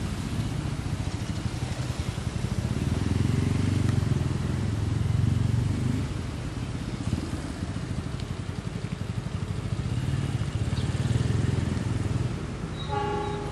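Low rumbling engine noise that swells and fades twice, with a short horn beep near the end.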